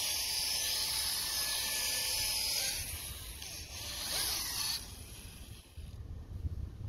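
Electric orbital sander running with a steady hiss as its pad sands a plastic headlight lens, then stopping about five seconds in. A low rumble follows near the end.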